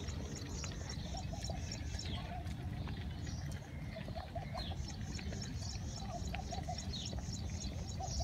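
Small birds chirping, with runs of rapid repeated high notes and shorter lower calls between them, over a steady low wind rumble on the microphone.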